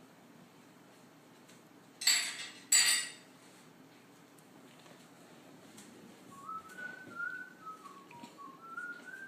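Two short, loud bursts of noise about two seconds in, less than a second apart. Then, from about six seconds in, a person whistles a short tune, the notes stepping up and down.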